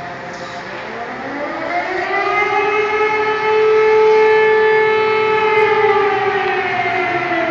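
Civil defense siren winding up, holding a steady wail, then starting to wind down near the end.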